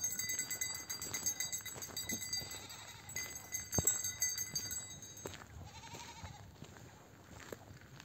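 Goats bleating, with a short call about six seconds in, over a steady high ringing tone that stops about five seconds in, and a few knocks.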